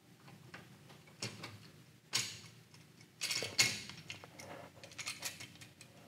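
Small clicks, scrapes and rustles of a duplex electrical outlet being handled while stripped solid copper wires are pushed into its push-in (back-stab) terminal holes. A louder scrape comes about two seconds in and a cluster of louder scrapes a little after three seconds.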